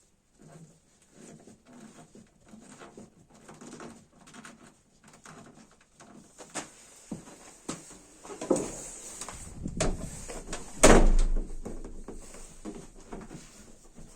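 Tailgate (fifth door) of a five-door Lada Niva shut with one solid thud about eleven seconds in, after some lighter knocks and handling noises. The door shuts with its stop-limiter cushioned by pieces of stiff rubber hose, and the latch does not clatter.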